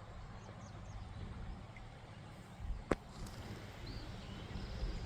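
Faint outdoor background noise at a creek, with a single sharp click about three seconds in.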